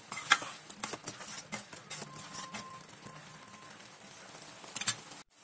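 A spatula stirring thick chickpea masala gravy in a steel kadai. It clicks and scrapes against the pan, busiest in the first two seconds, then goes quieter, with a few more clicks near the end.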